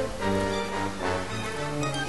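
Instrumental background music with held, steady notes.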